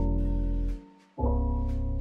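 Background music: sustained piano-like keyboard chords over a soft beat. One chord fades out just before a second in and a new chord enters.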